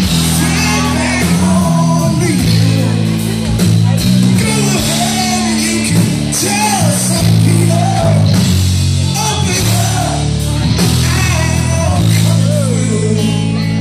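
Live rock band playing with a male lead singer: electric guitars, keyboard and drums under a sung melody, recorded from the audience in the hall.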